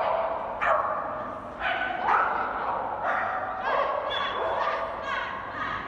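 A dog barking and yipping repeatedly while running an agility course.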